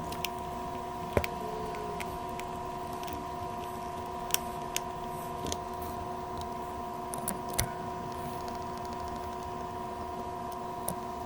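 Steady electrical hum made of several high tones, with a few sharp light clicks and taps scattered through it.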